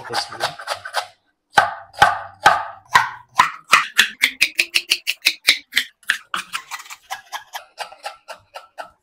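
Knife chopping through cabbage onto a wooden cutting board as it is shredded: a quick run of sharp chops, about three to four a second, with a short pause about a second in and lighter chops toward the end.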